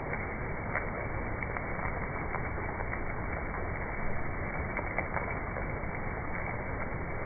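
Steady hiss with scattered crackling clicks.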